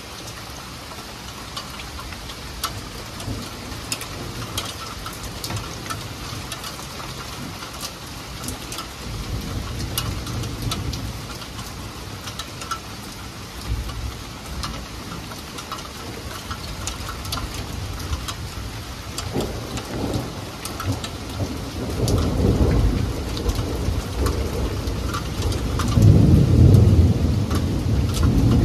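Heavy rain falling steadily, with close drops ticking sharply on hard surfaces. About two-thirds of the way through, a low thunder rumble rolls in and grows, loudest near the end.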